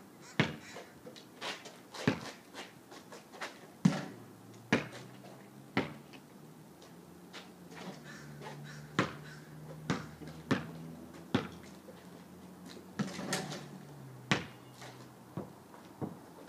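Basketball play: a series of sharp thuds from a ball bouncing on pavement and striking the backboard and rim. Some bounces come in quick runs, others a second or more apart.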